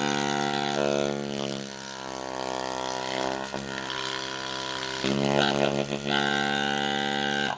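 12-volt electric air compressor running steadily, with a constant pitched hum, then cutting off abruptly near the end.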